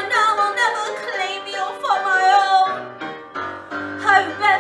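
A woman singing a musical-theatre song over accompaniment: long, drawn-out notes with a wide vibrato and gliding pitch, broken briefly about three seconds in before the line goes on.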